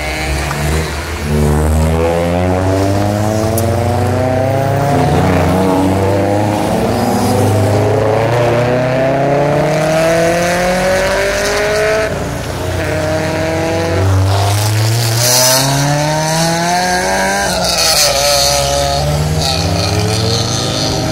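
A procession of cars passing one after another, their engines overlapping and rising in pitch again and again as each car accelerates.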